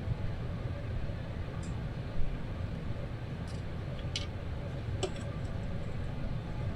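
A few small, sharp metallic clicks and one louder knock about two seconds in, as pan bolts are started by hand into a transmission oil pan, over a steady low hum.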